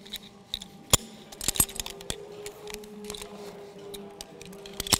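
Metal karabiners and rope-access devices clicking and clinking as they are handled during a changeover from ascent to descent on the ropes. Sharp clinks come about a second in, again around a second and a half, and just before the end.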